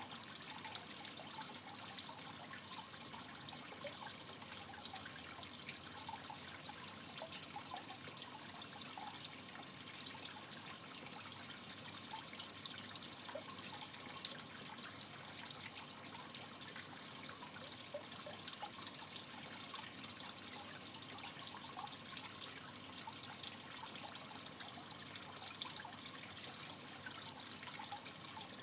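Aquarium water trickling steadily, with many small ticks and bubbles.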